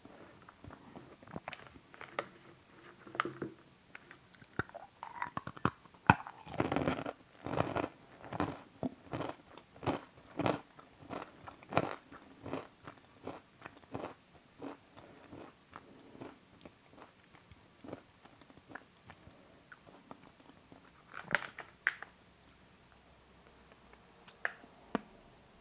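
A person chewing and crunching a chocolate-coated nut bar, close to the microphone: a run of crisp crunches about two a second, thickest from about six to thirteen seconds in, then sparser chewing with a short flurry of bites about twenty-one seconds in.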